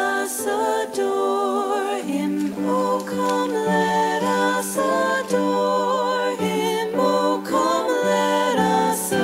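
Background music: slow, sung vocal music with voices holding long notes that step from one pitch to the next.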